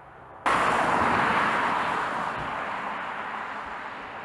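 Car driving past on the road and moving away, its tyre and road noise starting abruptly about half a second in, then slowly fading.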